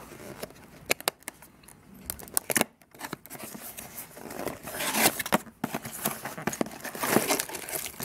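A cardboard product box being opened by hand: paper rustling, scraping and small clicks as the flap is worked open, strongest about five and again about seven seconds in, with plastic packaging crinkling as a packet is lifted out near the end.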